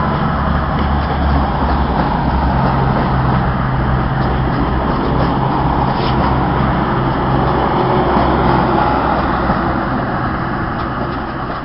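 Class 220 Voyager diesel-electric multiple unit's underfloor diesel engines running with a steady low drone, easing slightly near the end.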